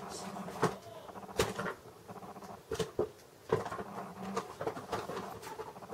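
Scattered small clicks and light rustles from close hand handling of small objects, coming irregularly less than a second apart.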